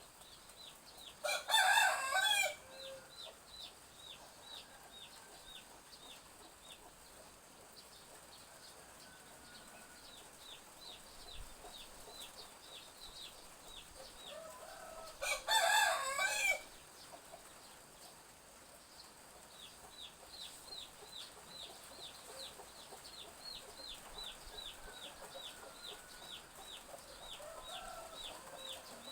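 A rooster crows twice, about 14 seconds apart. Between and after the crows, chicks keep up a long run of high, short falling peeps, about three a second, with a few soft clucks.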